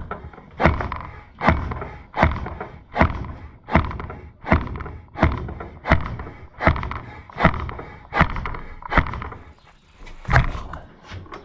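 Piston rod of an Oliver Cessna-type hydraulic cylinder worked as a slide hammer: the piston knocks hard against the cylinder head inside the barrel, about one knock every three-quarters of a second, to drive the stuck head out. The knocks pause briefly near the end, then come twice more.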